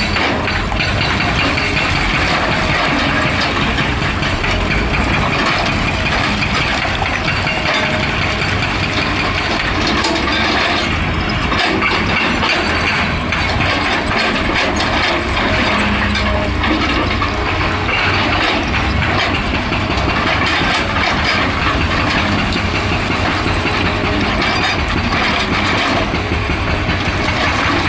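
Excavator working: the engine runs steadily under load with a dense, continuous clatter.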